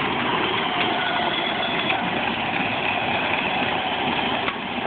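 Battery-powered children's ride-on toy Jeep driving on asphalt: a steady whine from its electric drive motors and gearbox over the rumble of its hard plastic wheels on the road.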